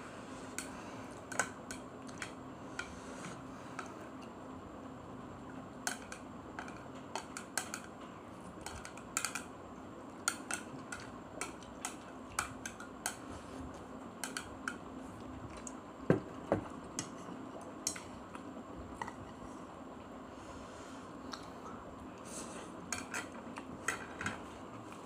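Plastic chopsticks clicking and scraping on a ceramic plate as noodles are picked up and eaten, in many short irregular clicks over a faint steady hum. There are two brief squeaks about sixteen seconds in.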